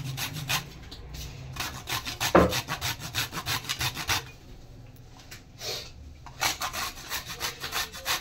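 A piece of coconut grated on a handheld metal grater: rapid rasping strokes, about four a second, with a short pause a little past halfway.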